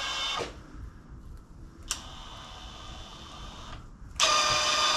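A small electric motor whines steadily in bursts. It stops just after the start, runs again more quietly for about two seconds, and comes back louder near the end.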